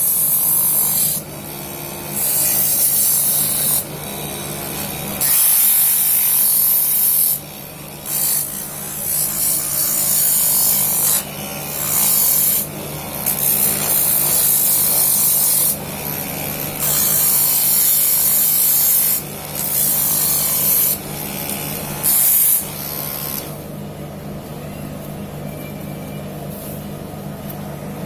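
Homemade mini lathe's 12-volt DC motor running with a steady hum while sandpaper is pressed against the spinning wooden piece in repeated strokes of a second or two, each a loud rasping hiss. The sanding stops about 23 seconds in and the motor runs on alone.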